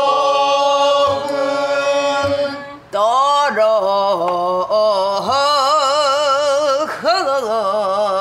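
A woman singing pansori in a long melismatic line: one steady held note, then bending, upward-sliding notes with wide vibrato. She marks the beat with a few light strokes on a buk barrel drum.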